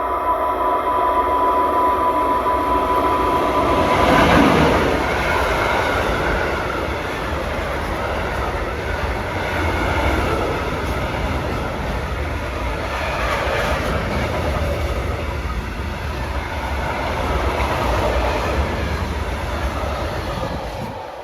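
Freight train hauled by an HŽ class 1141 electric locomotive passing by. A steady whine is heard at first, the sound is loudest about four seconds in, and then the wagons rumble and clatter past on the rails. The sound drops off at the very end.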